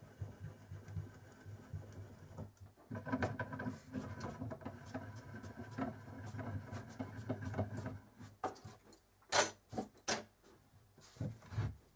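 Handwheel being cranked on a homemade mini lathe, driving the two-axis carriage along its lead screw and steel guide rods: a steady metallic rattle for several seconds. It is followed by a few sharp clicks and knocks, the loudest a single click near the end.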